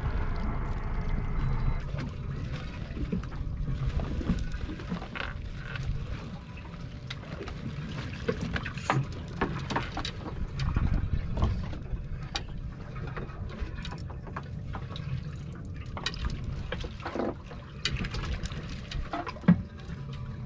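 Water lapping and splashing against the hull of a small fishing boat sitting still on the water, over a low rumble. Scattered short clicks and knocks of gear being handled on deck, with one sharper knock near the end.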